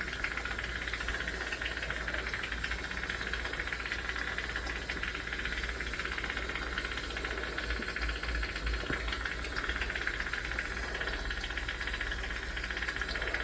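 Steady workshop background: an even hiss with a low hum underneath, with no distinct tool strokes or impacts.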